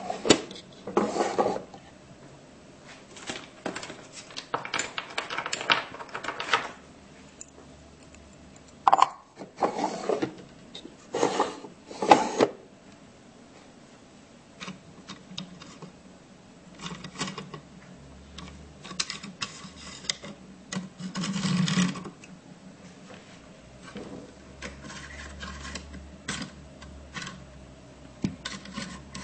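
Small wooden drawers and doors of a jewelry armoire being slid open and shut by hand: irregular wood-on-wood scraping with sharp knocks and clicks as they stop or close.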